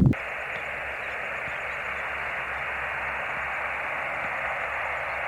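A short thump, then steady hiss of HF band noise from a Yaesu FT-817 transceiver's speaker, held within the radio's narrow voice-filter passband so that it sounds thin and band-limited.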